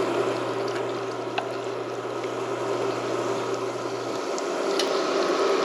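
Donuts frying in hot oil: a steady sizzle, with a low hum underneath that cuts off about four seconds in.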